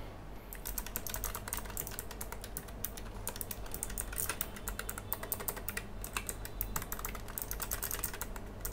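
Fast typing on a Keychron K11 Pro low-profile mechanical keyboard with clicky Gateron Blue switches: a quick, uneven stream of keystroke clicks starting about half a second in.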